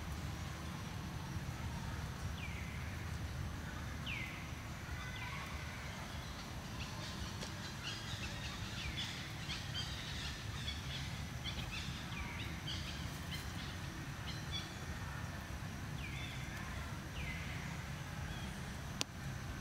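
Outdoor woodland ambience: birds calling over a steady low rumble. The calls are short and drop in pitch, repeated every second or so, with a busier stretch of chirping in the middle. A single sharp click comes near the end.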